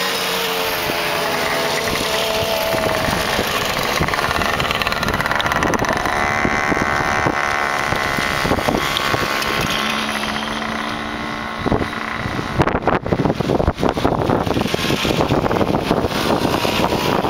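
Small two-stroke moped engines buzzing as several mopeds ride past one after another, the engine note rising and falling in pitch as each goes by. From about two-thirds of the way through, wind buffets the microphone.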